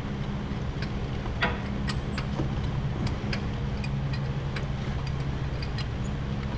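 A steady low machine hum, with light sharp clicks scattered through it every half second or so.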